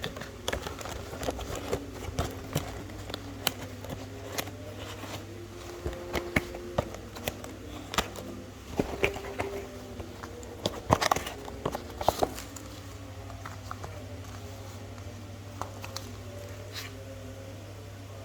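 Irregular sharp clicks and taps, many in the first two-thirds and fewer near the end, over a steady low hum.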